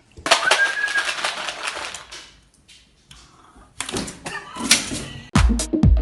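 A rapid run of clicks and rattles, a pause, then a second run of clicks. Music with a heavy, regular beat starts near the end.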